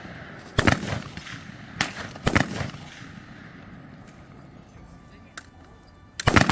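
Black-powder gunfire at a live artillery shoot: sharp blasts, each with a rolling echo. One comes less than a second in, two follow around two seconds in, and a double blast, the loudest, comes near the end.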